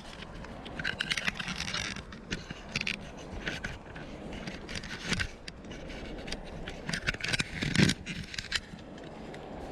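Irregular scraping, crackling and knocking, loudest in a cluster of knocks about eight seconds in.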